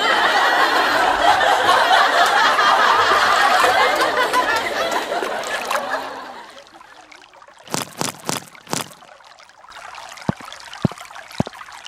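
Water pouring and trickling for about six seconds, then a few sharp clicks.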